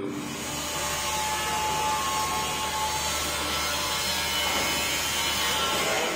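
Handheld angle grinder cutting through a steel bar, a steady grinding noise with a constant pitch.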